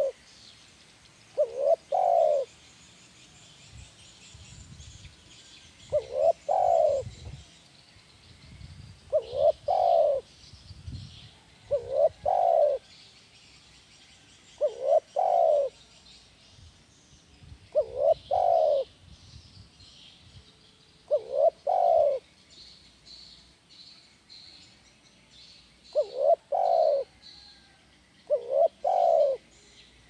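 Spotted dove cooing, repeating its short phrase of a quick note or two and a longer final coo about every three seconds: the 'kuk 1' song that tekukur keepers play as a model call. Faint chirps of small birds sound high in the background.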